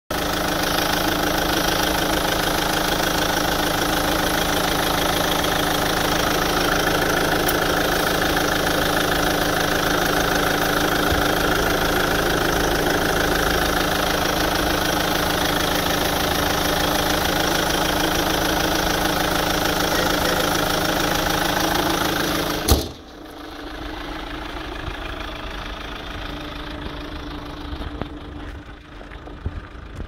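A 2008 Daewoo Winstorm's VCDi 16-valve diesel engine idling steadily with a diesel knock, heard close up in the open engine bay. About 23 seconds in a single sharp bang sounds, and after it the engine is much fainter.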